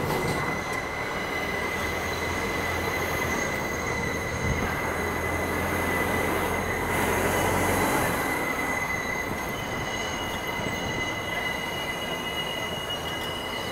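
Subway train's steel wheels squealing against the rails: a steady high-pitched squeal over a low rumble that eases off about eight seconds in.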